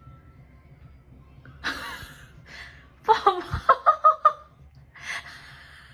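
A person laughing: a quick run of about seven short "ha" pulses lasting just over a second, with breathy exhalations before and after.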